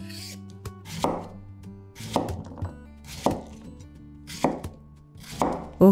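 Chef's knife slicing a cucumber into rounds on a wooden cutting board, five cuts about a second apart, each ending in a knock on the board.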